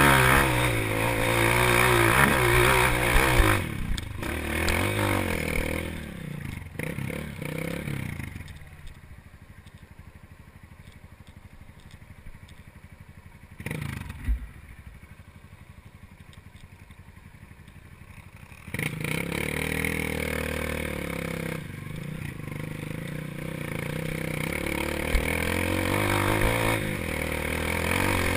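Dirt bike engine revving under load on a hill climb, then dropping to a low idle for about ten seconds with a single knock partway through. It pulls away again just before two-thirds of the way in and revs up steadily toward the end.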